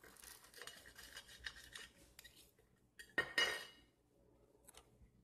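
Metal knife and fork cutting through a crisp deep-fried tortilla spring roll on a ceramic plate: scraping with many small crackles, then a louder clink and scrape of metal on the plate about three seconds in as the knife is laid down.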